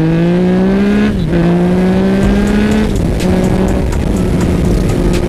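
Yamaha MT-09's three-cylinder engine accelerating hard: the engine note rises, drops with an upshift about a second in, climbs again, shifts once more around three seconds in, then holds a steady pitch, with wind noise on the microphone.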